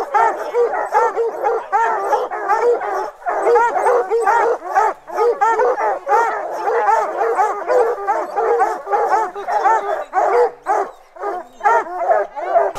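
A pack of bear hounds baying together at a treed black bear, many overlapping barks and bawls without a break.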